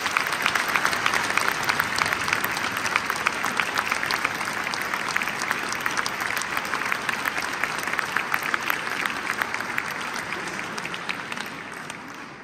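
Audience applauding in a large stone church, a dense patter of many hands clapping that fades out near the end.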